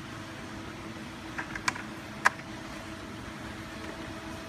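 Steady low machine hum with a few short, sharp clicks about a second and a half to two seconds in, the last the loudest.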